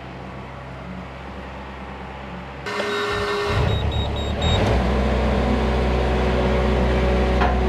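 Skid steer being started: a few short high warning beeps from the dash as the key is turned, a second or so of cranking, then the engine catches and runs steadily and loud.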